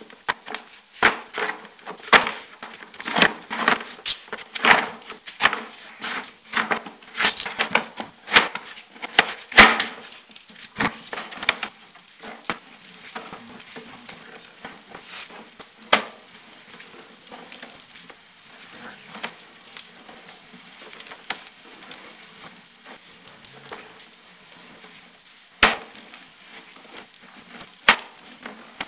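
Irregular clicks and knocks from a sewer-inspection camera's push cable being pulled back and handled at its reel. They come thick and fast for about the first twelve seconds, then thin out to a few, with two sharp knocks near the end.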